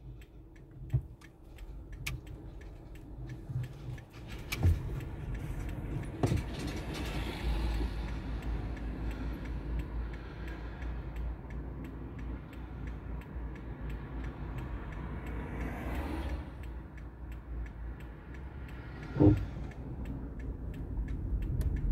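Car driving, heard from inside the cabin: a steady low rumble of engine and tyres on the road, with a few single knocks and rattles.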